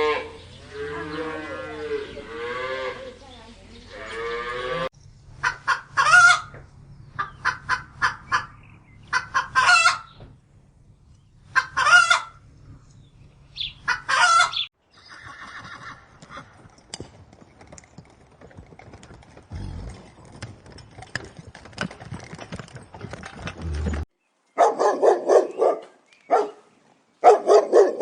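A cow mooing, then a chicken calling in short, sharp, repeated calls, a quieter stretch, and a dog barking in quick runs near the end.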